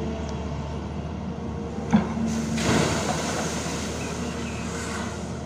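Diesel engines of a dump truck with its bed raised and a Hyundai hydraulic excavator running steadily. A single metallic clank sounds about two seconds in, and a louder rushing noise follows.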